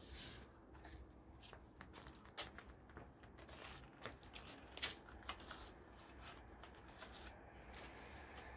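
Faint rustling and crinkling of plastic wrapping, with scattered sharp clicks and taps as the packaging is handled. The sharpest click comes about halfway through.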